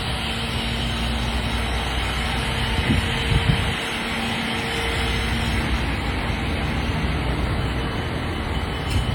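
Steady city traffic noise with a heavy vehicle engine running under it and a couple of brief low thumps about three seconds in.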